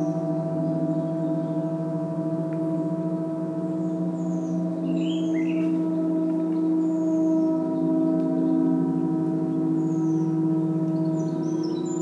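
Gong ringing in a sustained wash of many overlapping tones, swelling slightly in the middle. Birds chirp briefly several times above it, with a quick run of chirps starting near the end.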